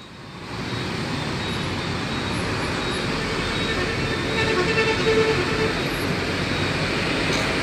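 Steady road traffic noise from passing vehicles, swelling up about half a second in.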